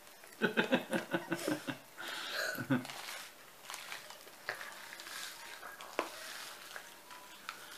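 A young child giggles in a quick run of laughs near the start. Then come the crinkling of a plastic sweet packet as she bites it open and tips it to her mouth, and faint scattered clicks.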